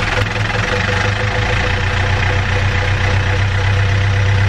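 Sailboat's inboard marine diesel engine idling steadily, heard up close in the engine compartment, running again after its clogged fuel lines were blown out and the fuel filter replaced.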